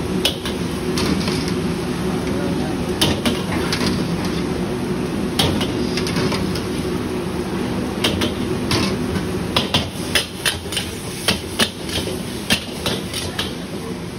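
Metal spatula and ladle clanging and scraping against a wok while noodles are stir-fried. The sharp strikes are scattered at first and come several times a second in the second half, over a steady low drone.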